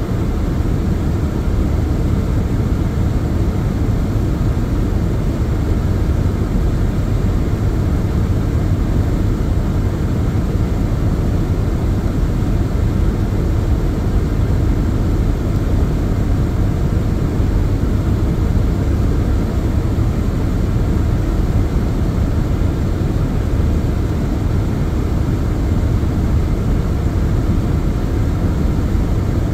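Steady road noise inside a car at highway speed: tyres and engine as a low, even rumble with no changes.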